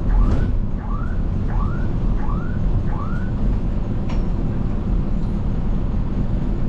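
Running engine and road rumble of a bus, heard from inside while it drives through city streets. Over it, a short rising chirp repeats about one and a half times a second and stops about halfway through. There is a single click near the middle.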